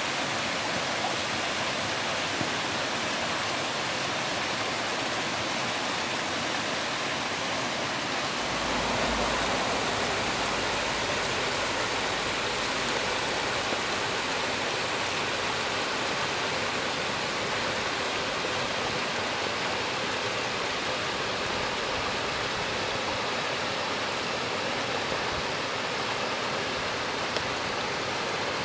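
Water rushing steadily through a stone-lined channel, a constant hiss with no breaks. A brief low rumble comes in about eight seconds in.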